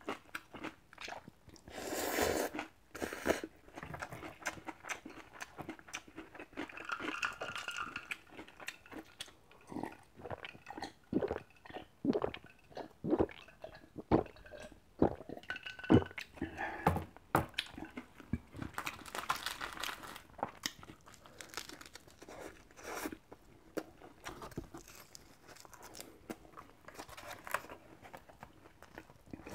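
Eating sounds: instant cup noodles slurped, kimchi chewed with crisp crunches, and gulps of cold water from a glass bottle.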